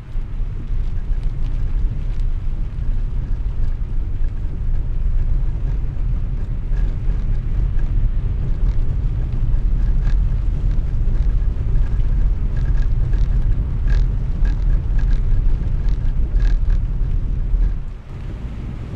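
A car driving through rain on wet cobbled streets, heard from inside the cabin: a steady low rumble of tyres and engine, with scattered light ticks through the middle.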